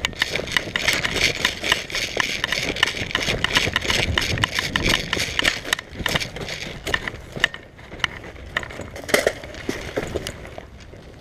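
Close, loud scraping and rustling with many irregular clicks, easing off near the end.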